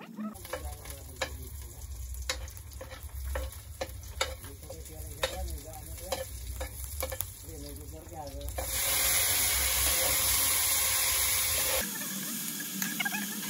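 Meat frying in oil in a metal wok, with a metal ladle clicking and scraping against the pan as it is stirred. About two-thirds through, the sizzle turns into a louder, steady hiss for about three seconds.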